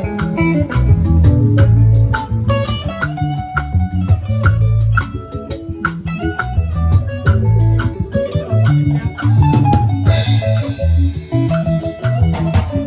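Live band playing instrumentals: plucked guitar lines over bass guitar and a drum kit keeping a steady beat, with a cymbal crash about ten seconds in.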